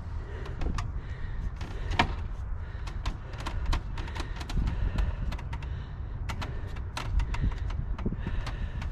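Irregular sharp knocks and clicks, dozens of them scattered throughout, over a steady low rumble.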